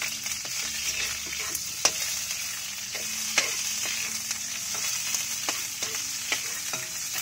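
Food sizzling steadily in hot oil in a wok over a wood fire, with a metal spoon scraping and knocking against the pan in sharp, irregular ticks as it is stirred.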